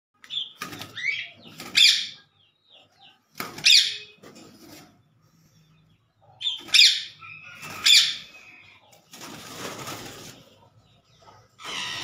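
Caged green parakeets giving short, sharp, loud calls every second or two, then a stretch of wing flapping and rustling about nine seconds in.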